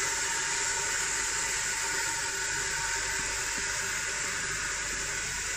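Caramelized onions and crushed cumin seeds sizzling in a hot stainless steel pot: a steady hiss.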